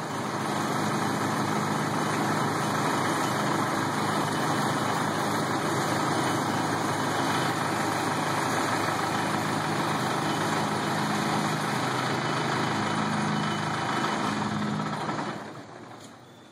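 1971 Mercedes-Benz L508D tow truck's four-cylinder diesel engine idling steadily; the sound falls away about fifteen seconds in.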